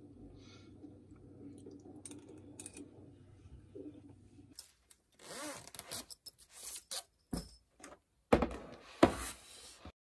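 Objects being handled on a desk: a faint hum with a few light clicks, then scraping and rustling from about five seconds in. Near the end come two loud knocks about a second apart.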